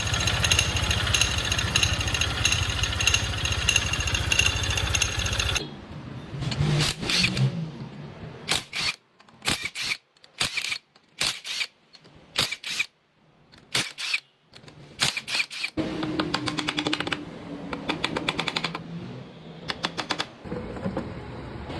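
Yamaha Mio Sporty scooter's single-cylinder four-stroke engine running with an abnormal rapid clatter, taken for a crankshaft noise. In the middle stretch the sound comes in short bursts separated by near-silent gaps, then runs steady again near the end.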